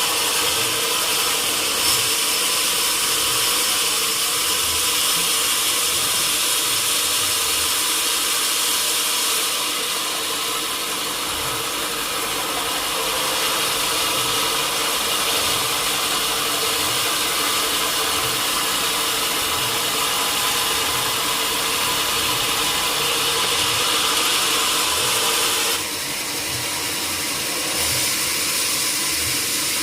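Sawmill saw and machinery running steadily, a continuous hiss over a steady hum, easing briefly about four seconds before the end.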